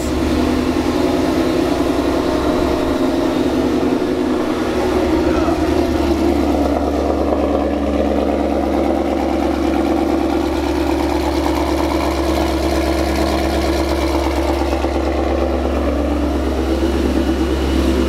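Whipple-supercharged 2016 Ford Mustang GT's 5.0 L V8 running steadily at idle, freshly started after a no-start caused by an intermittent fuel pump.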